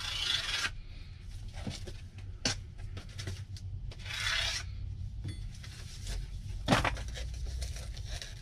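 Metal engine parts being handled: two short scraping rustles and a few sharp clinks, the loudest about seven seconds in.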